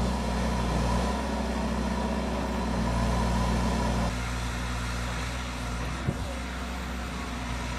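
A vehicle engine idling steadily with a low, even hum; the sound drops a little about four seconds in. A single short sharp knock comes about six seconds in.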